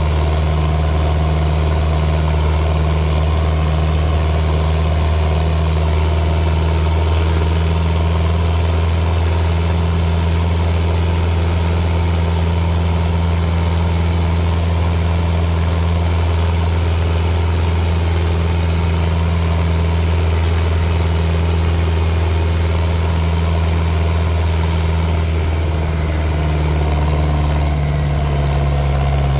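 Fiat New Holland L85 tractor's turbocharged diesel engine running at a steady speed, its note dropping slightly about 26 seconds in.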